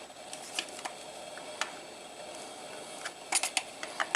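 Scattered light clicks and small knocks of a tool working at the tight-fitting plastic case of a Simpson 160 analog multimeter as it is being pried open, with a quick run of clicks about three and a half seconds in.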